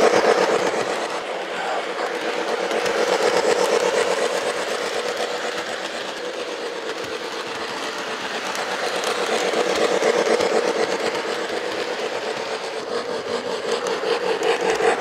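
Lionel LionChief Plus Canadian Pacific 4-6-2 O gauge steam locomotive running at speed on three-rail track: rapid, even steam chuffing from its onboard sound system over the noise of its wheels and motor. It swells and fades as the train comes near and goes away.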